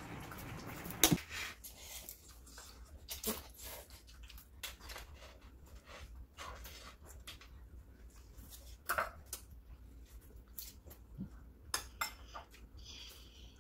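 Chopsticks and spoons clinking and tapping against ceramic bowls and plates as people eat: scattered light clicks at irregular intervals, the loudest about a second in.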